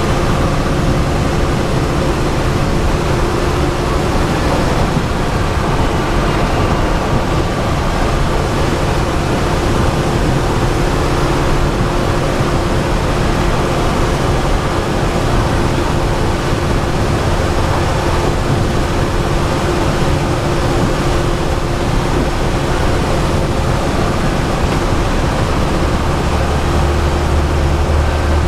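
Bus engine and road noise heard from the driver's seat while cruising on a highway: a steady drone with a constant hum. A deeper low hum builds near the end.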